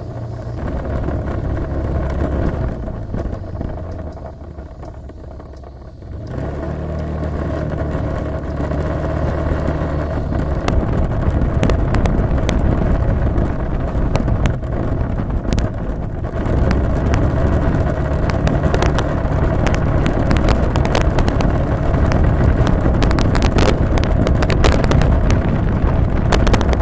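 Motor scooter riding along, its engine running under heavy wind rush and buffeting on the camera microphone. The level dips a few seconds in, then rises and stays loud with frequent crackling gusts.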